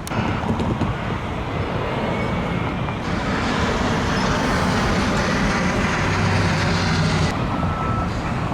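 Heavy vehicle engine running with passing traffic noise that swells louder through the middle, and a reversing alarm beeping near the end.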